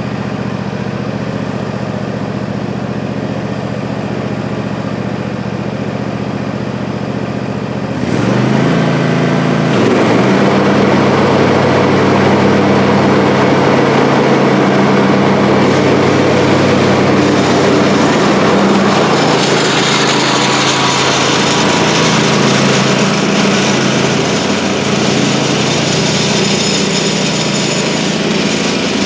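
Freshly repaired zero-turn mower running steadily. About eight seconds in it grows louder and fuller, the engine dipping briefly under load as it starts cutting long grass, then holding a steady mowing sound.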